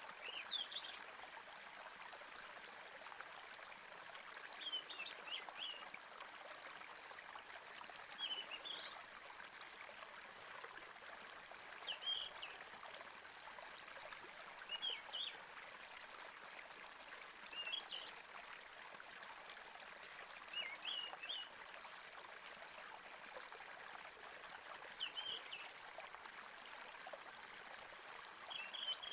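Steady rush of flowing stream water with short high chirp calls recurring about every three to four seconds, like a nature ambience track.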